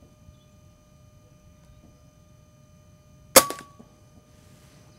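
A single shot from an Umarex Notos .22 PCP air rifle about three and a half seconds in: one sharp crack with a brief ring after it.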